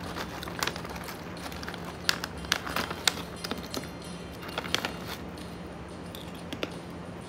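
A person eating a small crunchy snack close to the microphone: scattered sharp crunches and clicks at irregular intervals, over a low steady hum.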